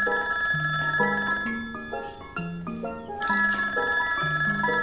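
Desk telephone ringing twice in long rings over comedic background music with a plodding bass line.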